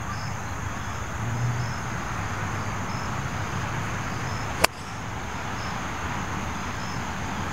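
Outdoor ambience of insects chirping in a quick, even, high-pitched repeating pattern over a low rumble, with one sharp click a little past halfway.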